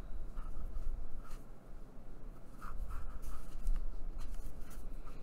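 Soft rubbing and scratching of string being pulled tight and knotted against a sewn paper signature, with hands brushing the paper.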